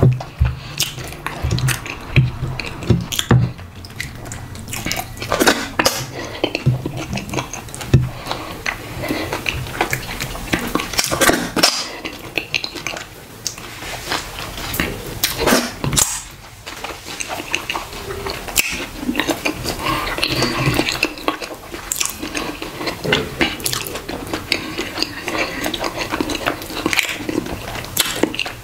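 A person eating ogbono soup and fufu with the bare hand: chewing and mouth sounds, wet sticky noises of fingers in the slimy soup and fish, and scattered sharp clicks throughout.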